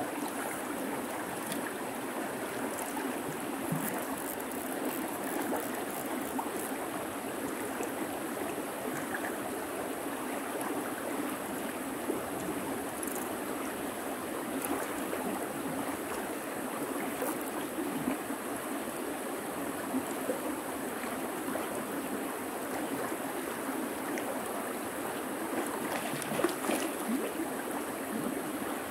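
River water running steadily, with a couple of faint knocks near the end.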